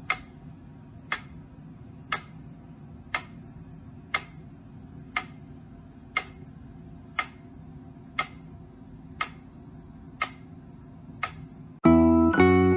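Sharp ticks, evenly spaced at about one a second, over a low steady hum. A tuneful run of piano-like notes starts near the end.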